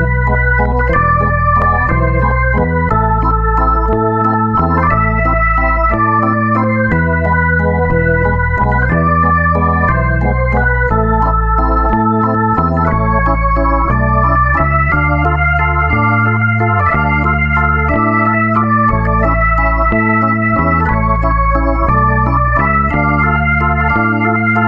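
Background music: sustained electronic organ chords over a bass line that changes roughly every second.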